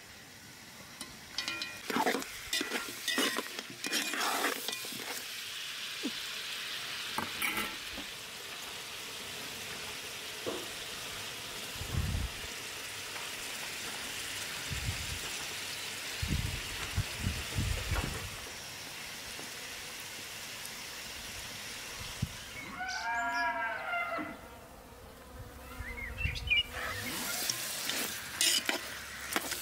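Chicken pieces and tomatoes frying in a large aluminium pot, a steady sizzle. Metal clinks and scrapes of a lid, knife and spoon against the pot come near the start and again near the end.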